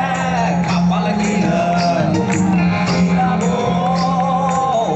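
A live rock band plays with a male lead singer singing a held, wavering melody over guitars, bass and drums, heard loud from within the concert crowd.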